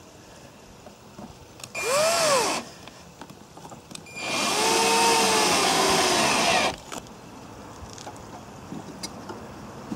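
Handheld electric power tool run in two bursts, a short one about two seconds in and a longer one of about two and a half seconds, its motor pitch rising and then falling each time.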